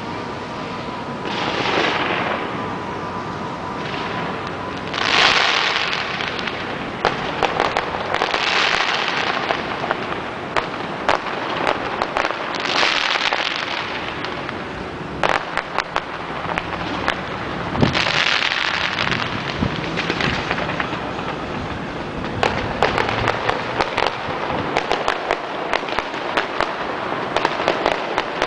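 Aerial fireworks display: several swells of crackling from bursting shells, mixed with many sharp pops and reports that come thicker near the end.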